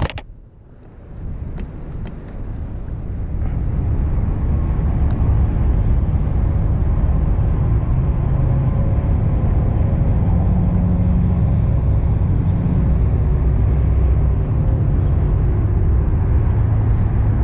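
Steady low outdoor rumble with a few faint steady hums in it, building over the first few seconds and then holding level.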